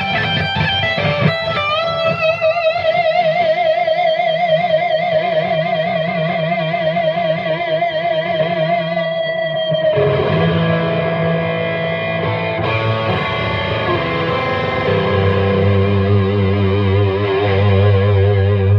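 Epiphone 339 semi-hollow electric guitar played through distortion: one long held note with wide vibrato sustains as feedback for about eight seconds, then the playing changes to lower notes and ends on a held low chord.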